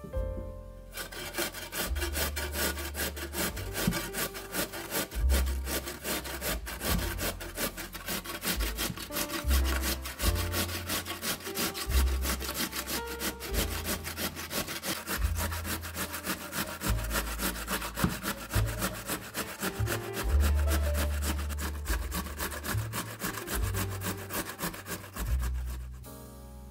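Peeled raw potato being grated on a stainless-steel box grater against a wooden board: a fast, continuous run of scraping strokes that starts about a second in and stops near the end. Soft background music plays underneath.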